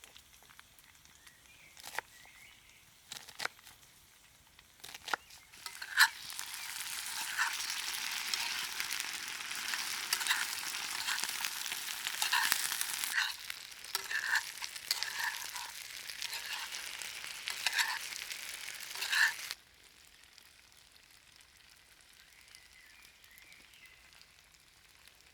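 Food frying, sizzling with scattered pops, for about thirteen seconds; it starts about six seconds in and cuts off suddenly. A few light knocks come before it.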